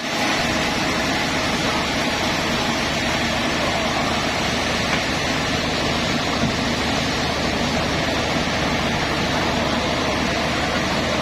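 Sawmill machinery running steadily: an even rushing noise over a low hum.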